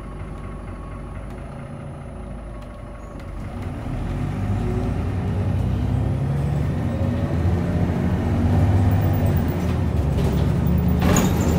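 Irisbus Citelis 18 articulated bus heard from inside the passenger cabin, running quietly at first, then its engine building up as the bus pulls away about four seconds in. There is a brief sharp noise near the end.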